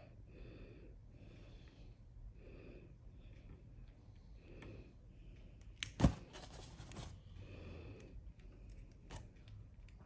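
Quiet hand-handling of a fly-tying bobbin and thread spool being sorted out: soft rustling strokes about once a second, with one sharp click about six seconds in.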